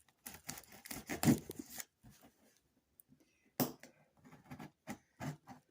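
A large cardboard shipping box being opened by hand: quick bursts of tearing, scraping and rustling of cardboard and packing material, in two spells with a quiet pause of about two seconds between them.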